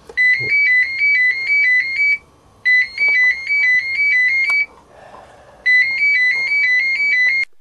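Telephone ringing: a high two-note warbling ringtone, three rings of about two seconds each with short pauses between.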